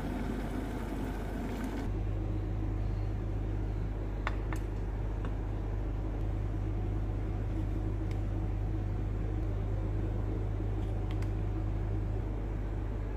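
Hot coffee poured from a porcelain jug into a dish, a short splashing hiss that stops about two seconds in. Then a steady low mechanical hum, with a few light clicks.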